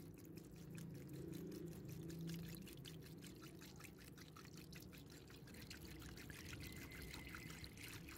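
Rust-removing acid poured from a bottle in a steady stream into a plastic tub, splashing over a rusty steel wrench, with a faint low hum underneath.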